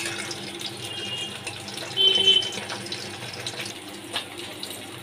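Bhola fish sizzling as they fry in hot oil in a wok: a steady crackling hiss, with a brief louder patch about two seconds in.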